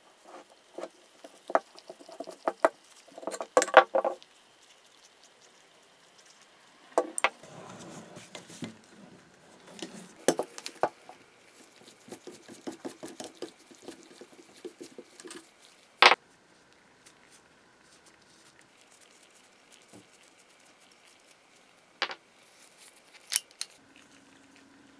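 Metal parts of a vintage Polish PWWE10 two-speed hand drill clinking, clicking and rattling as it is handled and taken apart by gloved hands. Scattered knocks and short rattles, with the sharpest click about 16 seconds in.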